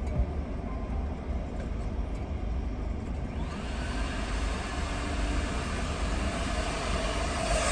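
A low rumble, then about three seconds in a coin-operated car vacuum's motor starts up and runs with a steady rushing hiss.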